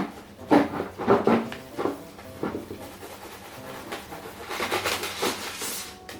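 A few sharp knocks and clatters, then a brief hissing rush of noise about four and a half seconds in.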